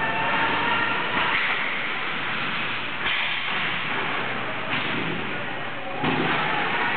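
Ice hockey play in an echoing rink: skates scraping the ice and faint shouting voices, with sudden knocks a few times. A heavier thud comes about six seconds in as a player is checked into the boards.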